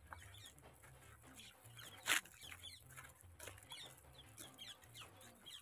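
Faint outdoor ambience of domestic chickens clucking and small birds calling in short, scattered notes, with one brief louder noise about two seconds in.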